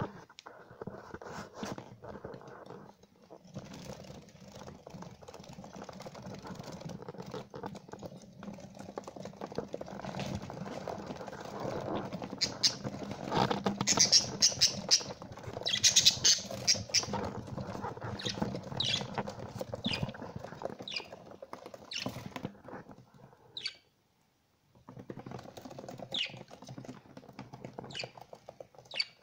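Young budgerigars giving short, sharp chirps, most of them in the second half, over a steady rustling and low hum.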